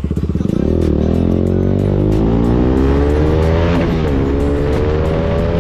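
Motorcycle engine accelerating hard. It pulses at low revs, climbs steadily in pitch, drops sharply at a gear change about four seconds in, then climbs again in the next gear.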